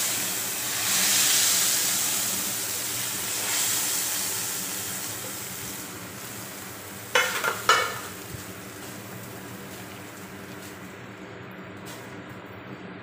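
Hot tadka (oil fried with cumin, chilies and spices) poured into a pot of kadhi, sizzling loudly and dying down over several seconds. A few sharp clinks about seven seconds in.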